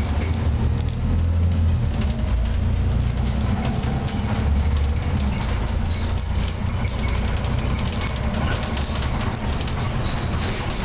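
A Volvo B7TL double-decker bus on the move, heard from the upper deck: a steady low drone from its rear-mounted six-cylinder diesel and running gear, with many small rattles and clicks from the body and fittings.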